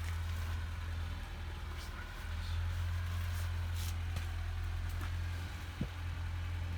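Steady low rumble that steps up slightly about two seconds in, with faint brief rustles over it.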